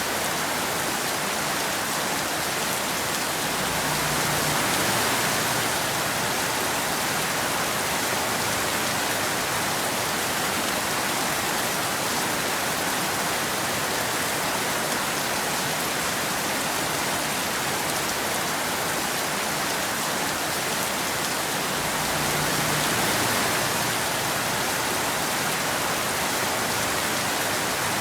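Steady rain falling in an even hiss, swelling slightly twice.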